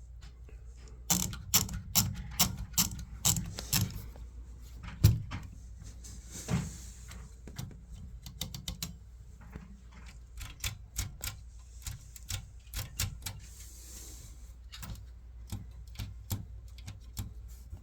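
Brother Webster XL-747 portable typewriter being worked by hand: a quick run of loud key strikes about a second in, then scattered lighter clicks and mechanism ratcheting, with two longer rasping sweeps of the mechanism around six seconds and thirteen seconds in.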